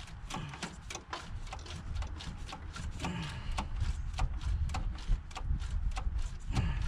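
A wrench clicking and clinking against metal while the EGR tube nut on a Ford 460 V8 is unthreaded, with a quick, irregular run of small taps over a low rumble.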